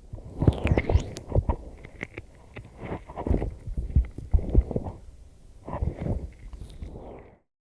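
Oiled hands rubbing and kneading ear microphones: irregular bursts of rubbing with muffled thumps, cutting off abruptly near the end.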